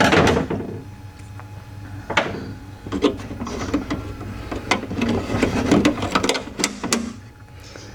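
Scattered clicks, taps and light rattles of car window regulator parts being handled and worked by hand, with a sharp knock right at the start.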